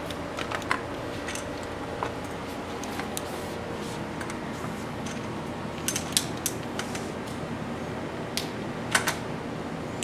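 Scattered light clicks and taps of metal bicycle parts being handled as a handlebar stem is fitted onto the fork's steerer tube and headset, with a small cluster of clicks about six seconds in and again near nine seconds, over a steady room hiss.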